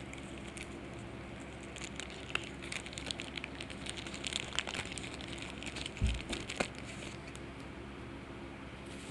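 Foil trading-card booster pack wrapper crinkling and crackling as it is handled and opened, in a busy stretch of crackles through the middle, with a soft thump about six seconds in.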